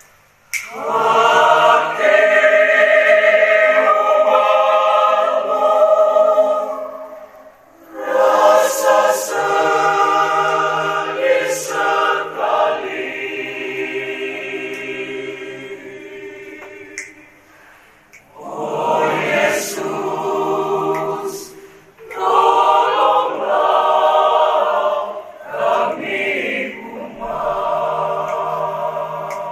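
Choir singing a liturgical chant in phrases, with short pauses between them.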